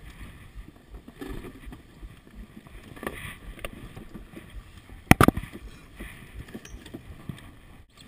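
A sailboat moving fast through choppy water in strong wind: wind on the microphone and water rushing and splashing along the hull. A cluster of two or three sharp, loud knocks comes about five seconds in.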